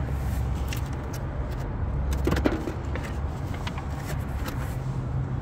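Small clicks and rustles of a weapon light's packaging and adapter kit being handled, with a louder clatter about two seconds in, over a steady low hum.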